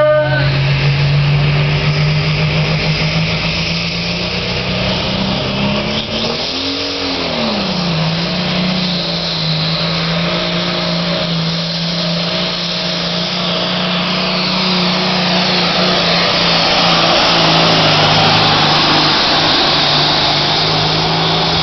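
Pro stock pulling tractor's turbocharged diesel engine running flat out under load as it drags the weight sled, its pitch swinging up and back down about seven seconds in, then holding steady. It grows louder as the tractor comes close near the end.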